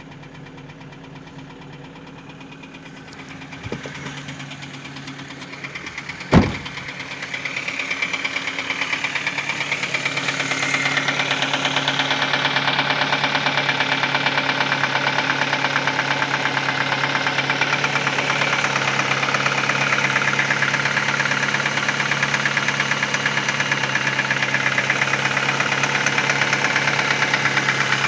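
2010 Ford Focus engine idling, the sound its owner presents as an engine problem. There is a faint click about four seconds in and a single sharp, loud knock about six seconds in. The engine then grows louder over the next few seconds and holds steady.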